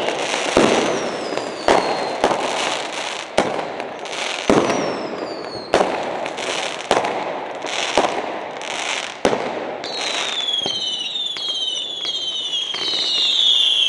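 Ground-launched fireworks firing in quick succession: a sharp bang about once a second with crackling in between. High whistles fall in pitch throughout, thickest from about ten seconds in.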